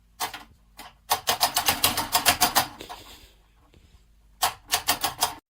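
Rapid runs of sharp taps or clicks, about eight a second: a few single taps first, then a run of about a second and a half, and another run near the end.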